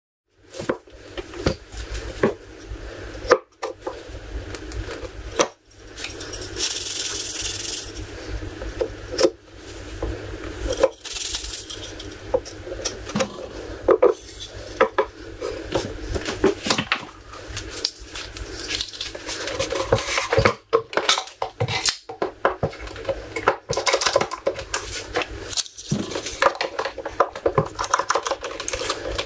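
Workshop clatter as wooden hatch parts and plastic bar clamps are handled and tightened on a wooden bench: many irregular knocks, clicks and clinks. A short hiss comes in about a quarter of the way through.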